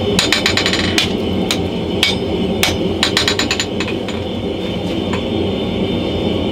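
Hand hammer striking red-hot leaf-spring steel on an anvil, with sharp ringing blows roughly every half second. Runs of quick light taps come near the start and again about three seconds in.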